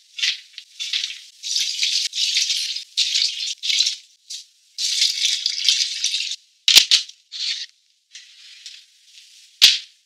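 Chopped chili, ginger and garlic tipped from a plate onto raw crabs in a clear plastic box: a run of short rustling, rattling bursts. About seven seconds in, a sharp click as the lid is snapped onto the box, and another sharp click near the end.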